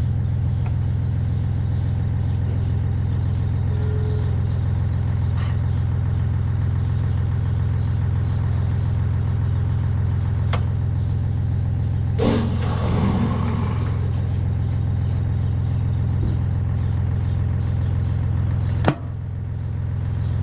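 Small wheel loader's engine running steadily, with a short rush of noise about twelve seconds in and a sharp knock near the end.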